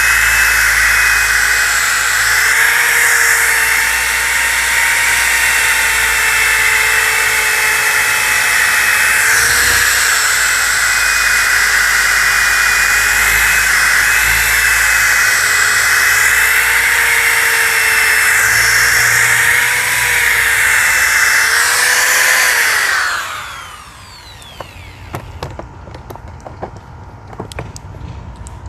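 DeWalt DWE6401DS disc sander running while sanding across a wooden board: a steady high whine with a hiss of abrasive over it, its pitch wavering slightly as the load changes. About 23 seconds in it is switched off and the whine falls away as the motor winds down, leaving a few light clicks and taps.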